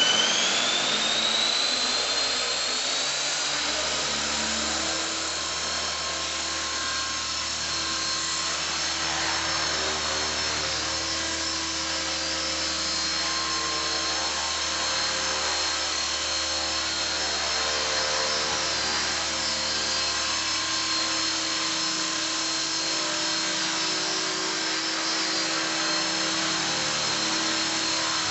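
Esky King electric radio-controlled model helicopter. Its motor and rotor spool up with a whine rising in pitch over the first few seconds, then run at a steady high whine while it hovers.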